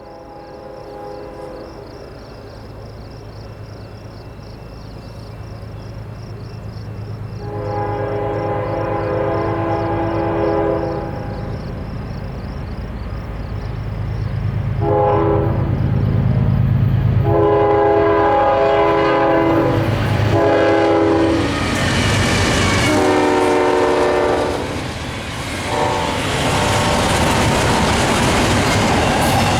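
Canadian National diesel freight locomotives approaching, their engine rumble growing louder. The multi-chime air horn sounds in several blasts, long and short, and the wheels and rail noise swell into a loud rush as the train reaches the camera near the end.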